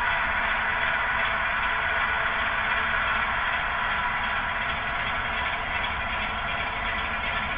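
Model Class 25 diesel locomotives' Bachmann DCC sound decoders playing a steady diesel engine tick-over through their small onboard speakers as the models creep along slowly.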